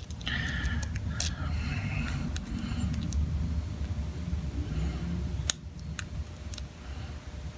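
Lock pick and tension wrench working the wafers of a Chicago Duo wafer padlock: low scraping and handling noise with a few sharp clicks, the loudest about five and a half seconds in, after which the handling noise drops away.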